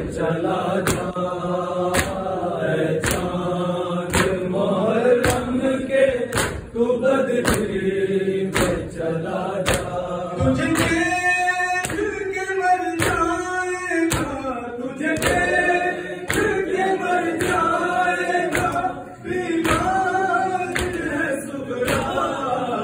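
A group of male mourners chanting a Muharram noha together, in a lamenting sung melody. They keep time with matam, palms striking their chests in a steady beat of roughly two slaps a second.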